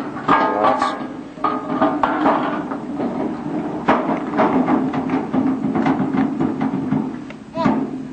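Irregular clanks and knocks of aluminium Medium Girder Bridge components being carried, dropped into place and pinned, with a brief shout near the end.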